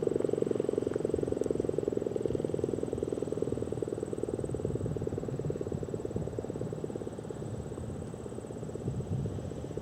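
ACA Banshee outdoor warning siren sounding a low, buzzing tone with a rapid pulsing texture, slowly getting quieter.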